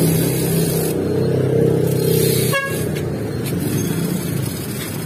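Road traffic: a motor vehicle's engine running close by as a steady low drone that fades after about four seconds, with a short sharp click about two and a half seconds in.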